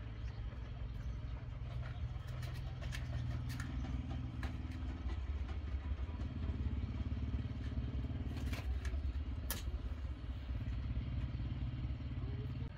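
Split wooden kindling sticks knocking and clattering a few times as they are stacked into a stone stove's firebox, over a steady low rumble.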